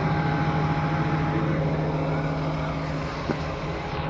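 Motor grader's diesel engine running steadily, a constant low drone at an even pitch.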